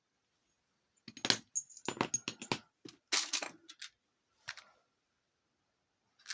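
A quick run of light metallic clinks and rattles, followed by two more single clinks: small metal parts being handled and set down.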